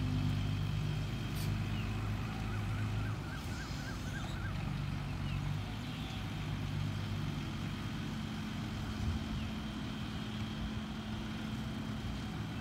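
Heavy diesel engine running steadily, its low drone strongest for the first few seconds and then easing off somewhat.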